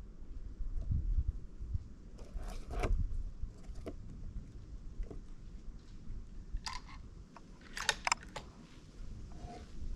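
Scattered light clicks, crackles and scrapes of handling close to the microphone, clustered around three and eight seconds in, over a low rumble.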